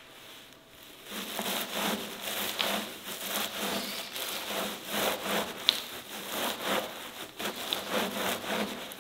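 Dough being worked on a wooden board: rhythmic rubbing strokes, about two a second, starting about a second in.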